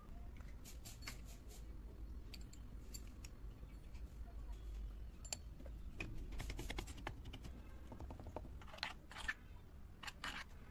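Clicks and taps of miniature kitchen utensils: a small wooden pestle pounding and grinding soaked rice in a tiny stainless steel cup, and a tiny spoon scraping the cup. The taps come in scattered clusters, loudest in the last few seconds.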